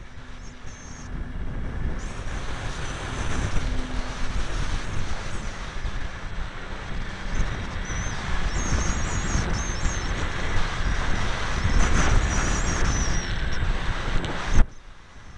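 Wind buffeting the microphone of a camera on a flying electric RC foam plane, with a faint high motor whine wavering up and down in pitch. Near the end a brief knock is followed by the noise dropping away suddenly.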